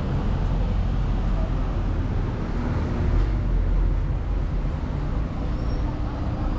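Downtown street traffic: a steady rumble of passing vehicles, swelling a little about three seconds in.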